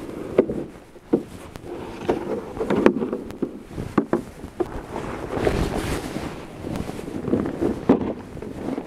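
A person handling outdoor gear in snow: irregular rustling, light knocks and clicks, and snow crunching as a fabric bag is loaded into a plastic sled. Some wind rumbles on the microphone.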